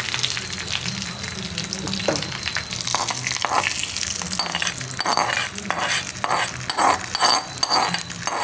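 Tempering of mustard seeds, urad dal and curry leaves sizzling in hot oil in a metal kadai. From about three seconds in, a metal spoon scrapes it out of the pan in a run of rhythmic scrapes, about three a second.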